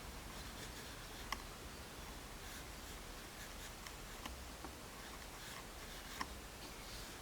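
Soft 5B graphite pencil sketching on thin printing paper: faint strokes scratching across the sheet, with three sharper ticks of the pencil.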